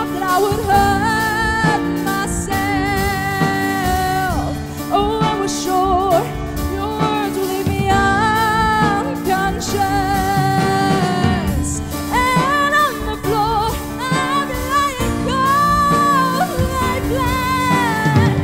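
A woman singing a pop ballad live into a microphone, accompanied by a band with keyboard, her voice carrying a bending, ornamented melody over held chords.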